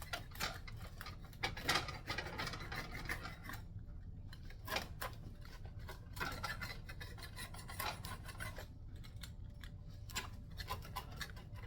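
Baked pizza being cut: a series of irregular rasping, scraping strokes as a blade saws through the crust.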